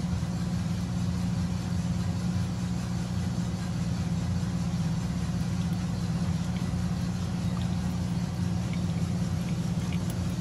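Steady low mechanical hum of running machinery, even in level throughout, with a few faint light clicks near the end.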